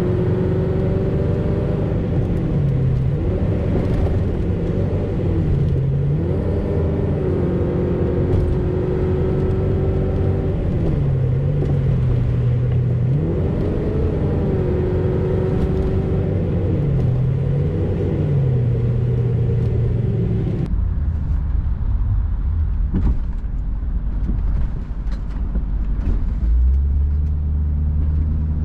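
A truck's engine and road noise heard from inside the cab while driving, the engine's pitch repeatedly rising and falling as it speeds up, shifts and eases off. About two-thirds of the way through the sound turns duller, leaving a low rumble.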